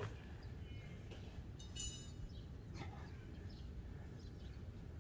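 Steady low outdoor background noise with a few short high-pitched chirps, the clearest about two seconds in.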